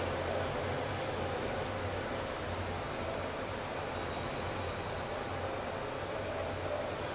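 Steady fan-like hiss over a constant low hum, with a brief high-pitched whistle about a second in.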